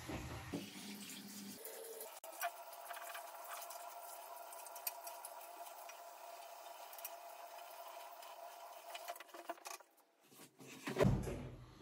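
Tap water running steadily into a sink, stopping about ten seconds in, followed by a short, louder handling noise near the end.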